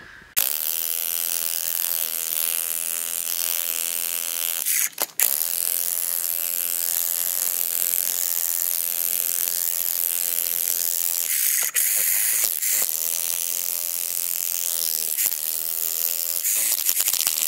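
VEVOR 3500W electric demolition hammer with a chisel bit hammering into a large rock, played back at four times speed so the rapid blows run together into a dense buzz. It stops briefly about five seconds in, then runs on.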